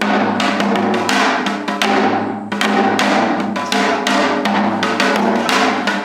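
Background music led by drums and percussion: a dense run of quick strikes over a steady low note.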